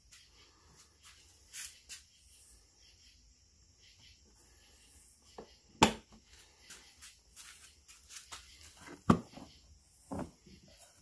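Hard plastic clicks and knocks from a pickup's molded center console being handled, with two sharp clacks about six and nine seconds in. Near the end the rear fold-out cup-holder tray clacks as it is pulled open.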